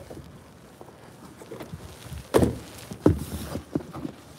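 Cardboard packaging being handled: a boxed item is lifted and shifted against a cardboard box, with two louder knocks about two and a half and three seconds in and a few lighter ones after.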